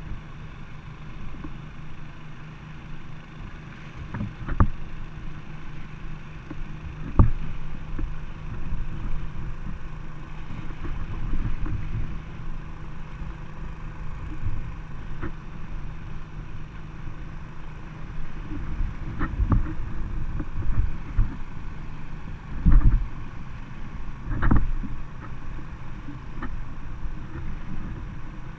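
River water sloshing and lapping against a small inflatable boat as it is pushed through a shallow current by hand. Several irregular thumps and knocks stand out above the steady water noise.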